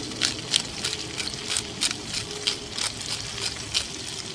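Black pepper being shaken or ground out of its container: a regular run of short, crisp strokes, about three a second, that stops near the end, over the faint sizzle of the pan.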